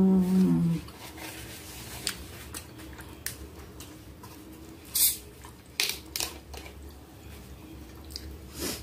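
A short hummed 'mmm' from the eater at the start, then scattered light clicks. About five seconds in comes a short, sharp hiss as the screw cap of a plastic bottle of sparkling water is twisted open and the gas escapes.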